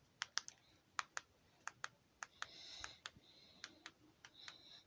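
Buttons on a TV remote control being pressed, about a dozen sharp clicks at an uneven pace.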